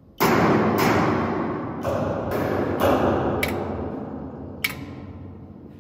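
Solenoids knocking on a resonant metal sheet, the vibrations picked up by piezo elements and played through speakers: about seven irregularly spaced metallic knocks, each leaving a long ringing decay.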